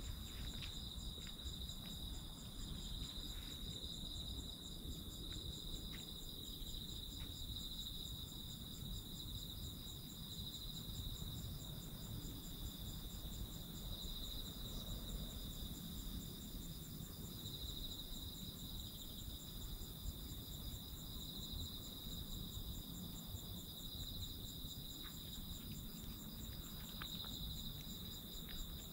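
Crickets and other night insects chirping steadily, several trills at different pitches overlapping, the strongest a high, finely pulsing one.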